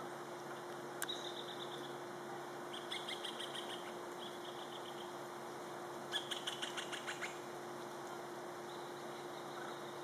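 Hispaniolan woodpeckers calling in short runs of rapid repeated chattering notes, three or four runs, the loudest and longest about six seconds in.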